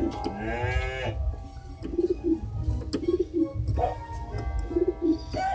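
A synthesizer's sampled dove cooing: three short two-note coos, spaced a second or two apart, heard through the keyboard's speaker. A different pitched animal sample ends about a second in.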